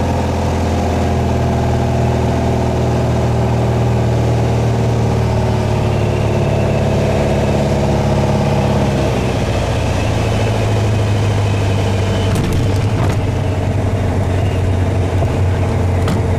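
Piper Arrow's engine and propeller heard from inside the cockpit on final approach: a steady drone that drops in pitch about nine seconds in as power comes back for landing. A few sharp knocks follow a few seconds later, about when the wheels meet the runway.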